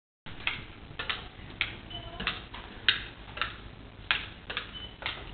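A toddler's high-heeled shoes clicking on a hard, polished floor with each step, about two uneven clicks a second.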